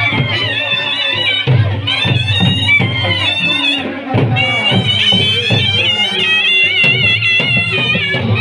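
A shrill reed wind instrument plays a wavering, ornamented melody over drumming, with short breaks in the melody about two and four seconds in.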